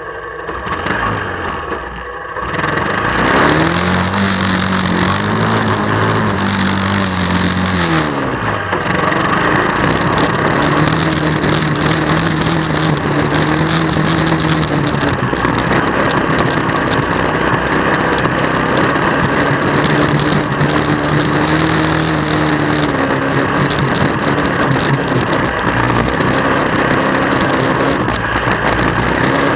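1999 Honda Fourtrax 300 ATV's single-cylinder four-stroke engine heard from on board while riding, its pitch rising and falling in repeated sweeps as the throttle is worked, over a steady noisy rush. It gets louder about two and a half seconds in.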